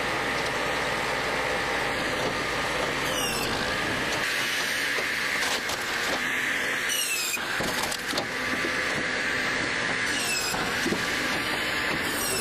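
A heavy tree-shredding machine running steadily and grinding up wood, with a few brief high squeaks.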